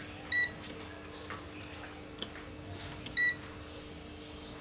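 ANENG Q1 digital multimeter in diode/continuity mode giving two short beeps about three seconds apart as its probes touch the inverter board's components, with a few faint ticks of the probe tips.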